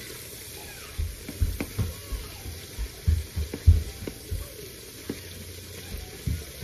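Shrimp in sauce sizzling in a frying pan while a wooden spoon stirs them. The spoon knocks dully and irregularly against the pan, loudest just past halfway.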